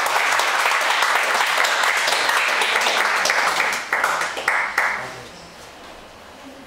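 Small audience applauding, the clapping thinning to a few last claps and stopping about five seconds in.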